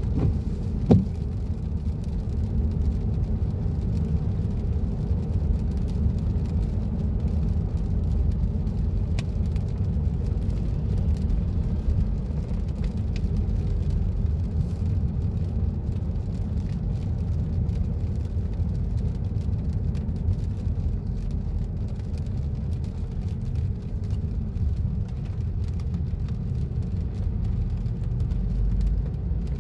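Steady low rumble of engine and tyre noise inside a car's cabin while it is driven slowly on a wet road. There is one short knock about a second in and a few faint ticks.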